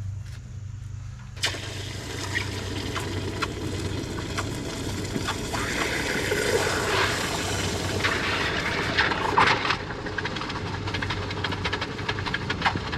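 Hot freshly cast metal quenched in water, starting suddenly with a loud steam hiss and sizzle that churns on like an old steam locomotive, breaking into rapid crackling pops near the end as the water boils.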